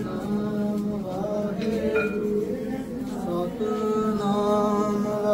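Devotional chanting: voices singing a Sikh hymn together in long held notes, with a steady low note running underneath.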